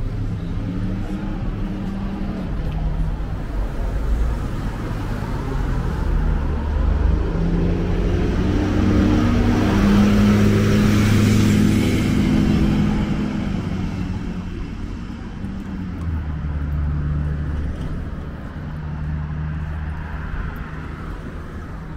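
Street traffic: a motor vehicle's engine and tyres swell as it passes close by, loudest about halfway through, then fade. A low engine hum from other traffic runs underneath.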